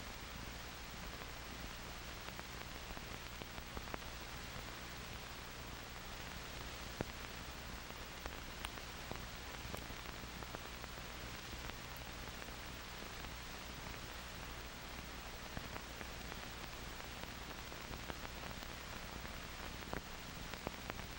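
Steady hiss of an old optical film soundtrack, with scattered faint clicks and a low steady hum underneath.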